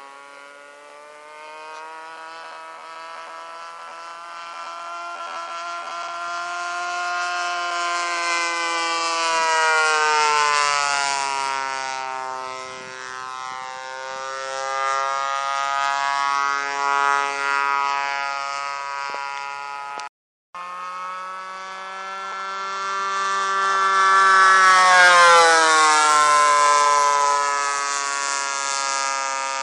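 Radio-controlled model airplane's engine whining in flight, making passes: the steady note with many overtones swells and then drops in pitch as the plane goes by, twice, loudest about a third of the way in and again near the end. The sound cuts out for a moment about two-thirds through.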